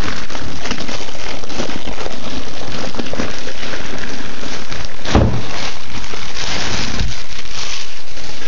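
Clear plastic bag crinkling and rustling close to the microphone as it is pulled off a new battery charger: a dense, continuous crackle, with one heavier thump about five seconds in.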